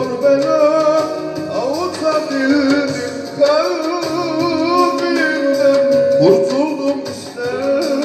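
Turkish song over a backing track: a man's voice sings wordless, ornamented long notes into a microphone, with one note held and wavering for a couple of seconds near the middle.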